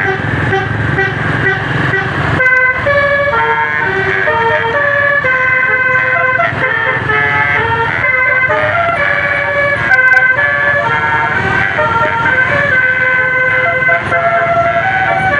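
Bus 'telolet' multi-tone air horn playing a quick melody, its notes stepping from one pitch to the next without letup, with a brief break about two and a half seconds in.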